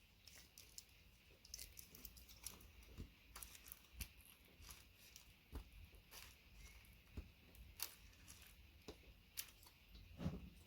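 Faint, irregular small clicks and scrapes of a gold-plated pin being pulled out of a VGA connector's plastic housing, with a slightly stronger click about ten seconds in.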